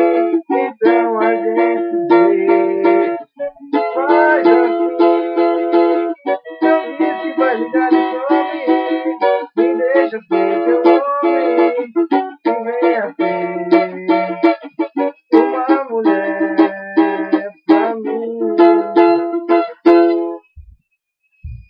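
Acoustic string instrument strummed in a steady rhythm with a melody over the chords, playing on after the last sung line. The playing stops near the end, followed by a couple of soft knocks.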